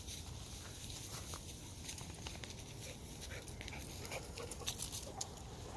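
Dog panting softly nearby, with scattered light ticks and crackles of movement.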